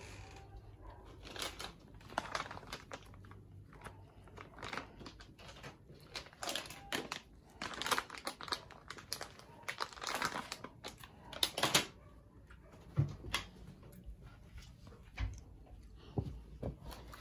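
Foil balloons crinkling and rustling in irregular bursts as cats brush and push against them, with a couple of dull low bumps near the end.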